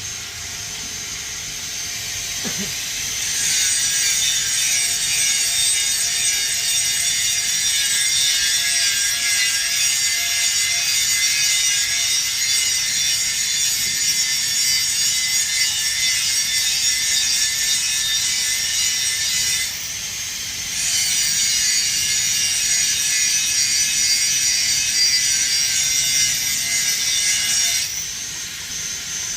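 TIG welding arc on stainless steel pipe, a steady high hiss. It starts about three seconds in, cuts out for about a second two-thirds of the way through, then resumes and stops shortly before the end.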